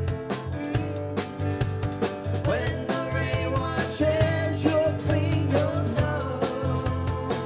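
Live band playing a song: a drum kit keeps a steady beat under acoustic and electric guitars and bass, and a voice comes in singing about two and a half seconds in.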